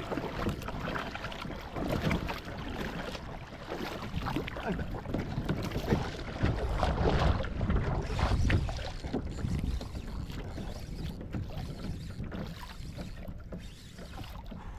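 Water splashing and lapping against a plastic sit-on-top kayak on the sea, with paddle strokes at first and wind buffeting the microphone. Loudest about halfway through.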